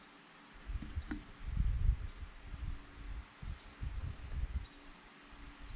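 Crickets trilling in a steady high tone, over low irregular rumbling and knocks from handling a plastic brake-fluid bottle while topping up an ATV's handlebar brake master cylinder reservoir.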